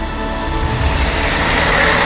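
Background music fades as the rumble and rushing hiss of a passing train build up, growing louder toward the end.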